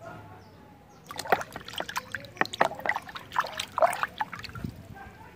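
Water splashing and sloshing in a plastic bucket as a hand swishes a muddy plastic dinosaur toy around to wash it. The splashing is quick and irregular, starts about a second in and dies away shortly before the end.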